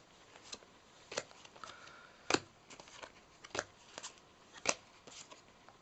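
Yu-Gi-Oh trading cards being flipped through one at a time by hand. Each card gives a short crisp snap, about one a second, with soft paper rustle between.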